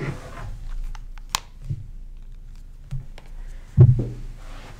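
Scattered small clicks and rustles of objects being handled at a table, with a dull thump about four seconds in that is the loudest sound.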